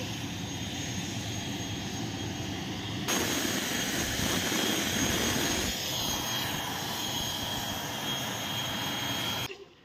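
Turboprop airliner engine running: a steady rushing noise with a thin high whine. The sound changes abruptly about three seconds in and drops away just before the end.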